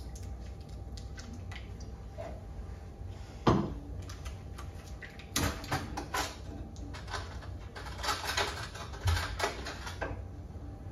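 Kitchen handling sounds while a pizza is topped: scattered light knocks and clicks of utensils and containers, with one sharper knock about three and a half seconds in.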